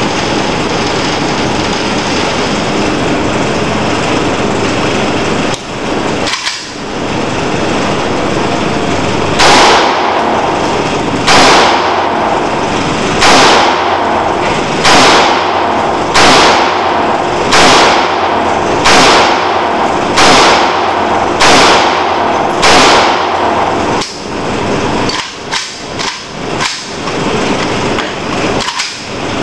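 A 5.45×39mm rifle fired ten times in a slow, even string, about one shot every second and a half, each shot ringing out in the indoor range. A steady loud background noise runs underneath.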